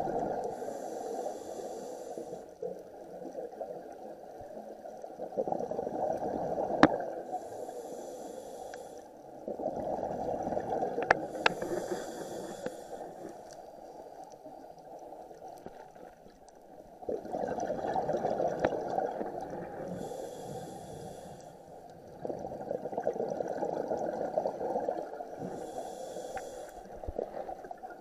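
A scuba diver breathing through a regulator underwater: about five breaths, each a short hiss of inhaled air through the demand valve alternating with a longer low bubbling rumble of exhaled air. A few sharp clicks come in between.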